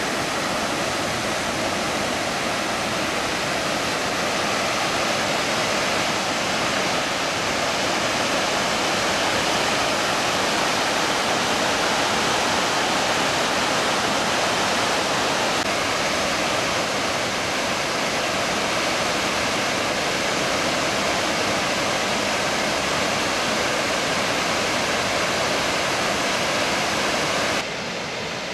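Steady, loud rush of a waterfall cascading over rock ledges into a pool. Near the end it drops to a quieter rush.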